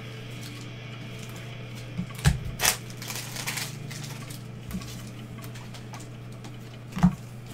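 Trading cards handled by gloved hands: a few taps, clicks and a short rustle as cards are flipped and set down. There are sharp taps about two and a half seconds in and again near the end, over a steady low hum.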